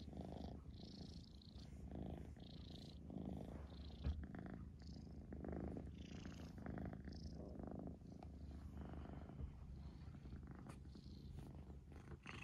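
Long-haired tortoiseshell cat purring steadily while being stroked, the purr swelling and fading about once a second. One short tap is heard about four seconds in.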